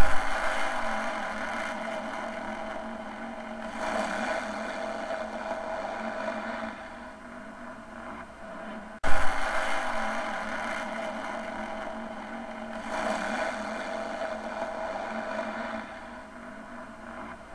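Motorboat engine sound effect running steadily. The same recording starts over about halfway through with a sudden jump in level.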